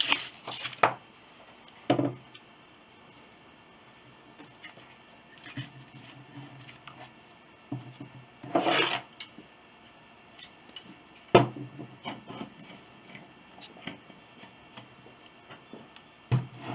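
Small wooden molding pieces handled on a workbench: scattered taps and clicks of wood on wood, a rubbing scrape about halfway through, and one sharp knock a little later.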